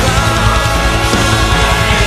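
Loud progressive metal music from a full band, playing at a steady high level.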